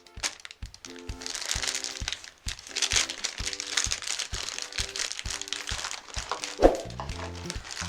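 Dry breakfast cereal crackling and crunching, a dense run of small cracks, over background music with a steady beat.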